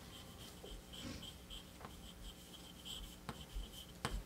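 Faint scratching, a soft irregular ticking, with a few sharp clicks near the end.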